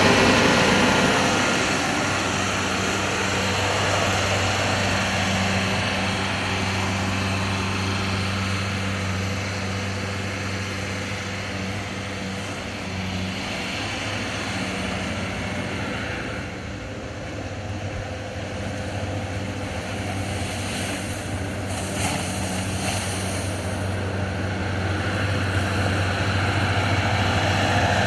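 Bobcat S185 skid-steer's turbo diesel engine running steadily with a constant low drone, the new turbo and belts fitted.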